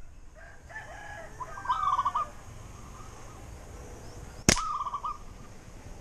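A rooster crowing twice: a longer crow about a second in and a shorter one near five seconds. A single sharp snap sounds just before the second crow.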